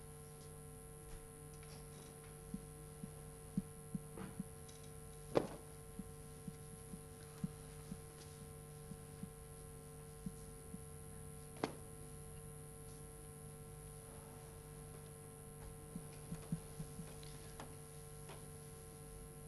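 Faint steady electrical hum on the soundtrack, with scattered soft clicks and taps; the sharpest click comes about five seconds in and another near twelve seconds.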